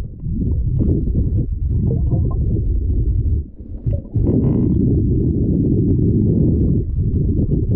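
Loud, steady low rumble of wind buffeting the microphone, easing briefly about halfway through.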